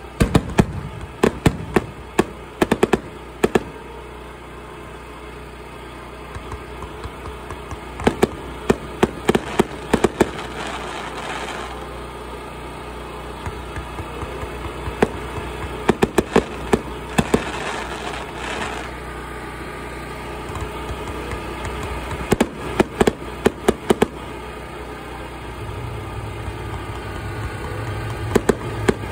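Aerial fireworks going off in clusters of sharp bangs and crackles every few seconds, with two longer stretches of hissing crackle partway through. A steady low rumble runs underneath.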